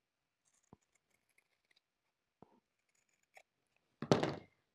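Scissors trimming a corner off fabric: a few faint clicks, then a louder half-second rustle about four seconds in.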